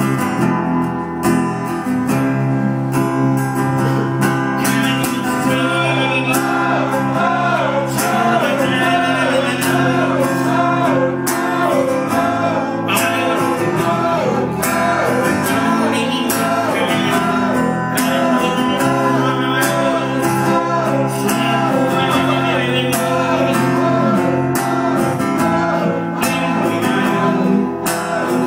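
Live band music: acoustic guitar strumming and electric bass under a wavering lead melody through the vocal microphone.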